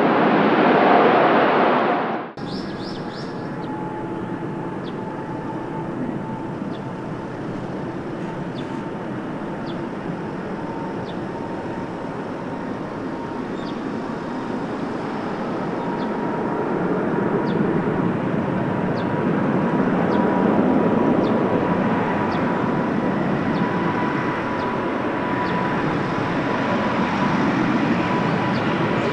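Boeing 777-300ER's GE90 jet engines running, a steady rumble with a faint whine slowly rising in pitch, growing a little louder partway through. In the first two seconds, louder jet noise from an Airbus A380 cuts off abruptly.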